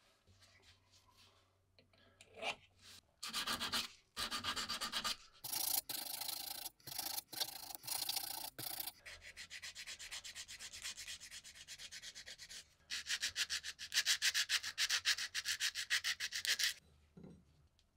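Quick back-and-forth hand rubbing of an abrasive pad against the steel of a WW2 British M4 spike bayonet, about four strokes a second. The strokes go softer for a few seconds in the middle, pick up again and stop near the end.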